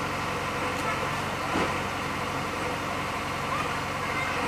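JCB backhoe loader's diesel engine running steadily as the machine is driven off the truck, with one short knock about a second and a half in.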